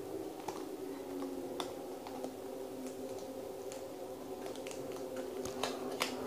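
Scattered light clicks, taps and scrapes of fingers working at a tight small cube box to get it open, with two sharper clicks near the end. A steady low hum runs underneath.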